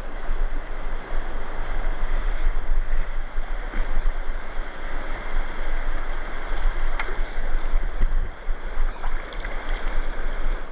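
Steady rush of a flowing trout creek, with low wind rumble on the microphone and one faint click about seven seconds in.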